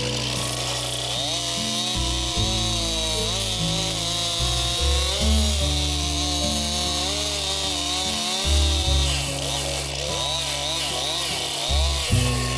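Background music with held bass notes changing in steps, over a Stihl MS261 two-stroke chainsaw running, its pitch rising and falling.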